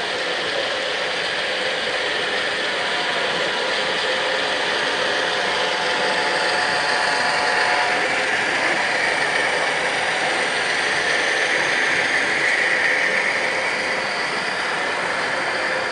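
HO-scale model freight train running past, Intermountain Norfolk Southern ES44DC locomotives and covered hoppers: a steady whir of motors and gearing with the rattle and clicking of small metal wheels on the rails. It grows louder as the cars pass closest, a few seconds before the end.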